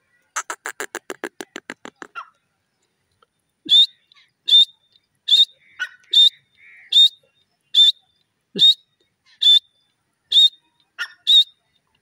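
Grey francolin calling: a quick chattering run of short notes, then ten loud, sharp, high-pitched calls repeated at an even pace, a little under one a second.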